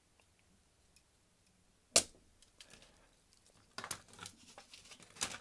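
Small handling noises from desoldering work at a bench. A single sharp knock comes about two seconds in, and a run of small crackling clicks and scrapes follows near the end.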